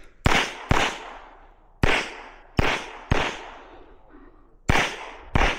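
Semi-automatic pistol fired seven times in about five seconds, at uneven spacing with some shots in quick pairs. Each shot rings out with a short echo tail.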